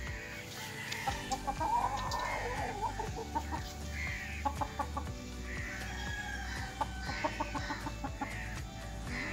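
Aseel chickens clucking and calling in short repeated notes, over background music with a steady beat.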